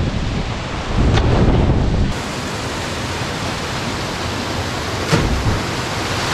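Steady rush of water over a small river cascade, with wind rumbling on the microphone for the first two seconds. About five seconds in comes one short splash as a cliff jumper hits the pool.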